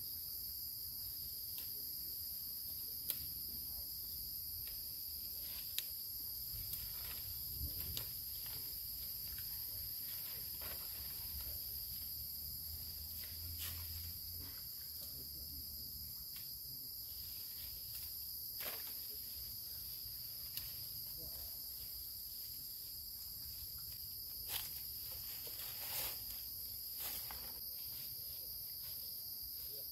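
Steady, high-pitched chorus of jungle insects, with scattered soft clicks and knocks throughout.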